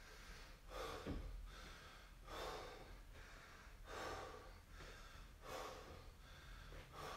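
A man breathing hard and out of breath from exertion while holding a weighted wall sit: faint, heavy breaths about every second and a half.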